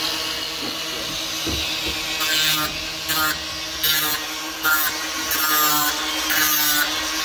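Cordless angle grinder running with a steady whine, its disc pressed against chainsaw chain teeth in short grinding passes about every two-thirds of a second from about two seconds in, sharpening the chain.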